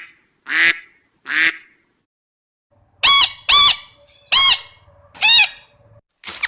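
Animal calls: three short harsh calls in the first second and a half, then, after a pause of about a second and a half, four loud honk-like calls with a clear, arching pitch, a little under a second apart.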